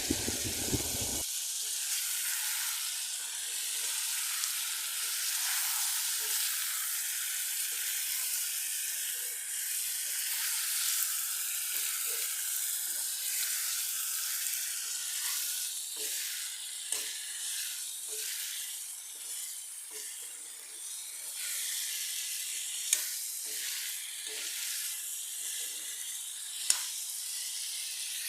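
Mutton frying in a pan with chilli, sizzling steadily as it is stirred. Light scrapes and clicks of the spatula run through it, with two sharper clicks near the end.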